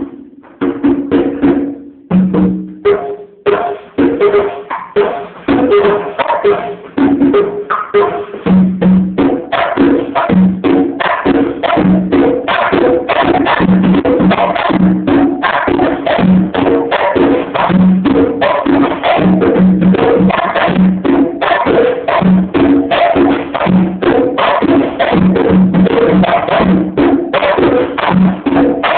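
Conga drums played by hand in a fast, busy rhythm, several drums ringing at different pitches. The strokes start sparse and become a continuous run after a few seconds.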